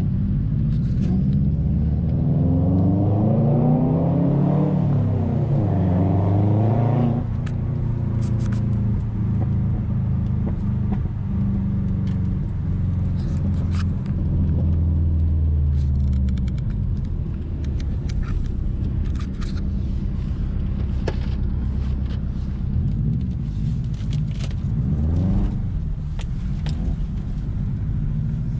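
Car engine and road rumble heard from inside the cabin while driving. The revs climb under acceleration and then drop off sharply about seven seconds in, and the engine settles into a steady cruising drone. The revs rise again briefly near the end, with scattered sharp clicks throughout.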